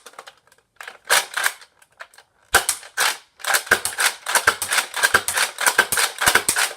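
A Nerf foam-dart blaster firing: sharp snapping shots, a few spaced apart at first, then a rapid string of about five a second from about three and a half seconds in.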